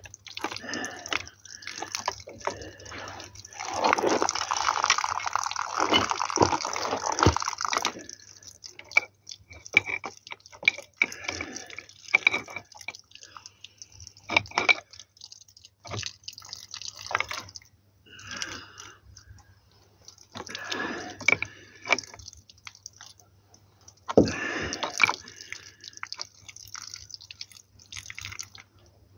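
Water dripping and spraying from a water pipe as a brass tap is worked onto it with pliers and a wrench, with scattered metallic clicks and scrapes from the tools. A denser stretch of splashing comes about four to eight seconds in.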